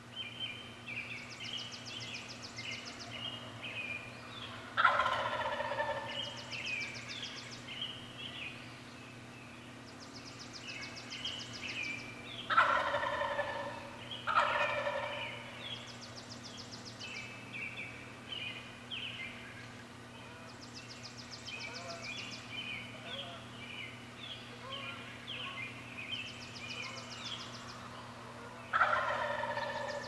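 Wild turkey gobbling four times, each a loud rattling call of about a second, over continuous songbird singing and a high trill that repeats every few seconds.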